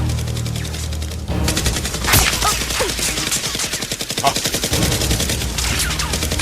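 Rapid bursts of gunfire-style shots, many a second, in a staged blaster battle, over background music with a steady low bass.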